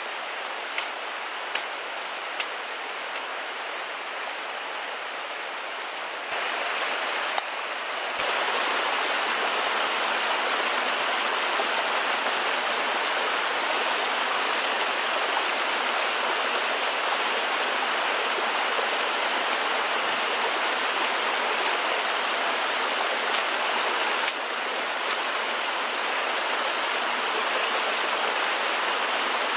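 Shallow forest stream pouring over a low rock cascade: a steady rush of water that grows louder about eight seconds in. A few light ticks sound in the first few seconds.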